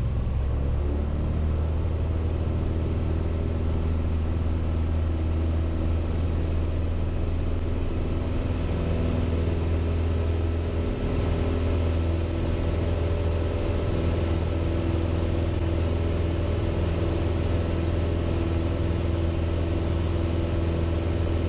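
Piper Cherokee PA-28-180's four-cylinder Lycoming O-360 engine and propeller, heard from inside the cabin, coming up to full takeoff power about a second in, then running steady at full throttle for the takeoff and climb-out.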